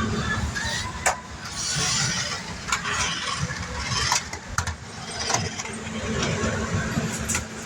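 Toy remote-control cars' electric motors whirring steadily, with several sharp knocks scattered through.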